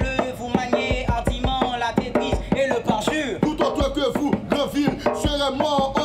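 A man's voice declaiming lines in Haitian Creole in a rhythmic, chant-like delivery over quick, steady strokes on a rope-tuned hand drum.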